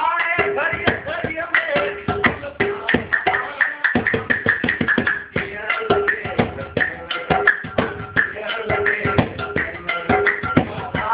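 A metal pot played as a hand drum in a fast, driving rhythm of sharp strokes, with men singing a Sindhi qalandari devotional song over it.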